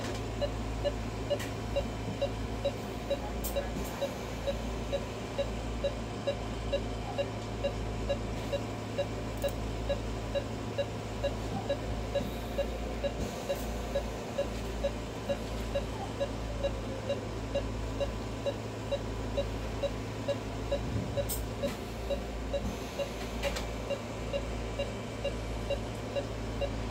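Anaesthesia patient monitor beeping steadily in time with the anaesthetised dog's heartbeat: short beeps of one pitch at an even rhythm, over a steady low electrical hum.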